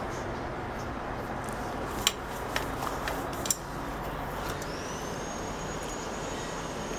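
Small sharp clicks and taps of tools handling a multimeter's circuit board while the buzzer is desoldered, three of them in the middle, over a steady background hum. A faint high whine sets in about two-thirds of the way through.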